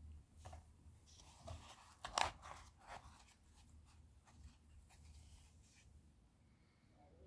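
Faint handling noise as a hand lifts a watch on its cushion out of a presentation box: soft rustles and small clicks, the sharpest click about two seconds in, dying away after about six seconds.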